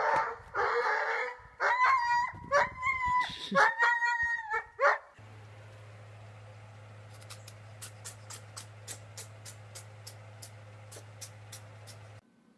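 A dog barking and yelping in loud, high-pitched calls for about five seconds. Then a steady low hum with a run of light, evenly spaced clicks, about three a second.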